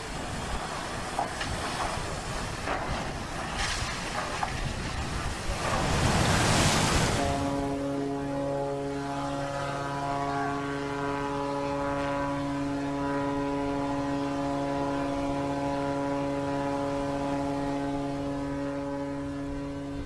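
Passenger ferry's horn sounding one long, steady warning blast from about seven seconds in, with the ship out of control after a mechanical failure and bearing down on the harbour wall. Before the horn, a loud rushing noise that is loudest just before the blast begins.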